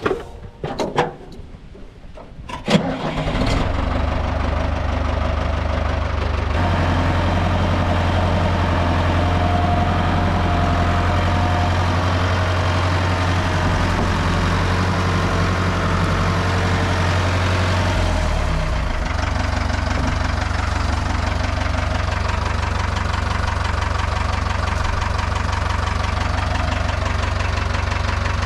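A few knocks, then the Ford 5000 tractor's engine starts about three seconds in and runs steadily. Its note changes twice, about a quarter and about two-thirds of the way through.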